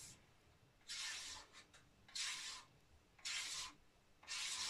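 A thin wooden stick is dragged through a layer of shaving foam in a metal baking tray in four short strokes about a second apart. This is the feathering stroke of foam marbling, drawing food-dye colours across the foam.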